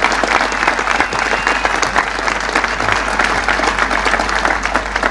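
Large crowd applauding, a dense, steady patter of many hands clapping.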